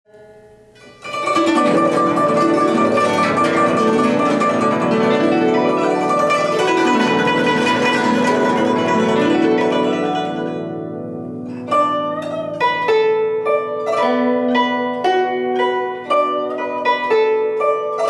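Scarlet Bird (Zhuque) guzheng played with fingerpicks: a dense wash of rapidly struck, overlapping ringing notes for the first ten seconds or so, then single plucked notes picked out one by one from about twelve seconds in.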